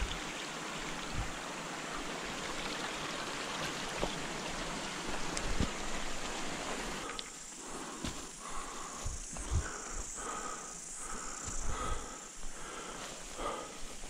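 Shallow stream water running over stones for about the first half. It then fades, and irregular footsteps take over, brushing through ferns and undergrowth.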